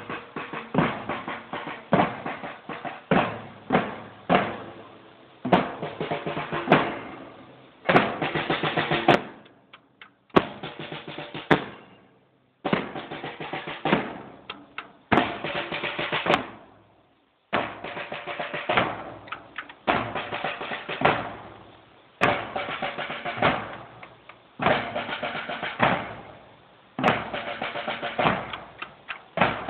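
Marching band drum section playing a cadence: bass drum beats under snare drums, with rapid runs of snare strokes. The pattern breaks off briefly a few times.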